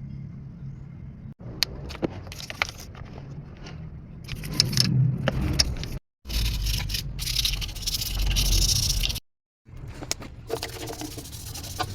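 Car repair sounds: sharp metallic clinks and scraping of hand tools over a low, steady engine-like hum, broken by a few abrupt cuts, with a louder hissing stretch in the middle.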